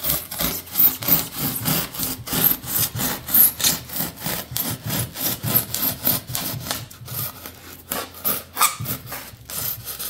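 A knife blade sawing back and forth through rigid foam insulation board in rapid rasping strokes. It is a plain cold blade, not a hot knife, so it tears rather than melts its way through the foam.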